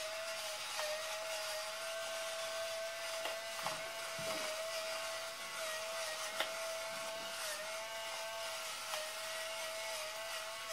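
Electric pepper mill grinding pepper: a small motor's steady whine held for about eleven seconds, cutting off near the end.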